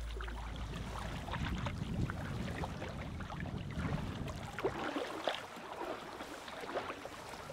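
Splashing and sloshing of someone wading through knee-deep shallow seawater, in irregular bursts, over a low rumble of wind on the microphone that eases off about halfway through.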